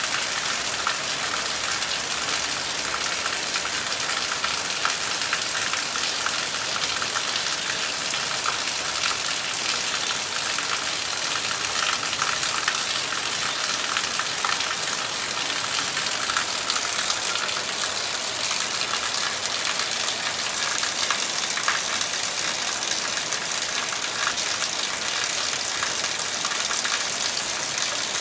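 Heavy rain falling steadily on leaves and ground, a dense, even hiss of drops that neither swells nor fades, with no thunder.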